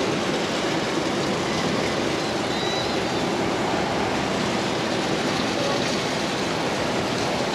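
Steady, even rushing noise of open-air seaside ambience out on an ocean fishing pier, with no distinct events.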